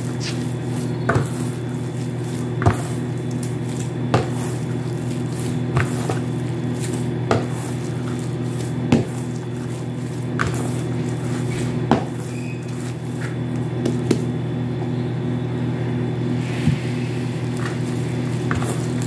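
Hands kneading bread dough in a plastic basin: soft squishing with a short knock about every second and a half as the dough is pressed and turned against the bowl, over a steady low hum.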